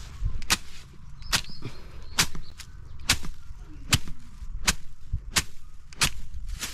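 A hand grass slasher's metal blade swung again and again through tall grass: about nine sharp swishing cuts, a little under a second apart, over a low rumble.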